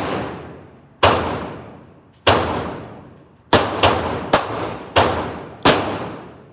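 Gunshots echoing in an indoor shooting range: seven sharp reports, each with a long reverberating tail, the first few more than a second apart, then coming faster.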